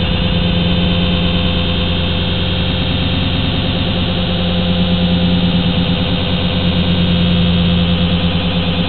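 JJRC H8D quadcopter's motors and propellers running steadily in a hover, a loud, even drone with a strong low hum, heard close up through the drone's own onboard camera.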